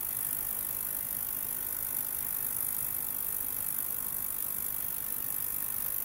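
Ultrasonic cleaner running: a steady high-pitched hiss of cavitation in the water-filled tank, with no change in level.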